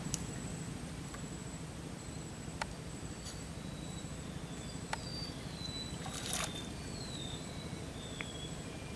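Quiet river ambience: a steady low murmur with a faint high steady tone, a few faint clicks, a short splash-like hiss about six seconds in, and several short falling whistles in the second half.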